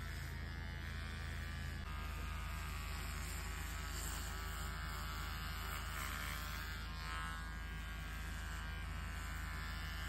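Electric hair clippers buzzing steadily as they cut a man's hair down short. The hum changes slightly about two seconds in.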